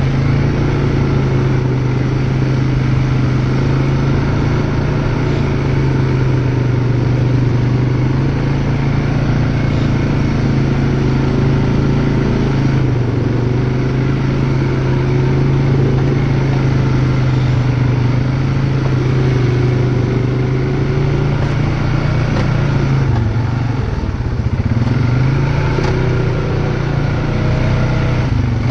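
ATV engine running steadily at low speed, its pitch wavering slightly, dropping briefly about twenty-three seconds in and then picking back up.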